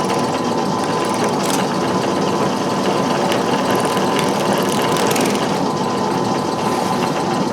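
Dremel rotary tool running steadily at high speed, grinding to clean up a drilled cut-out.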